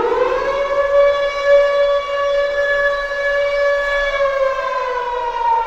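Ice hockey goal horn sounding a siren-like tone. It rises in pitch at the start, holds steady, and begins to slide down near the end.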